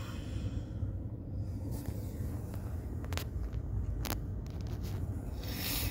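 Steady low hum inside a car's cabin, with two sharp clicks about three and four seconds in and a short hiss near the end.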